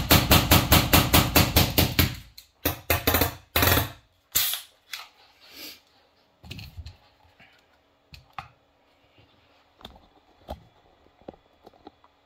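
A brand-new PepperBall TCP launcher dry-fired in a rapid string, about five sharp shots a second for some two seconds, then a few more after a short pause, as the new launcher is broken in. Scattered light knocks of the launcher being handled follow.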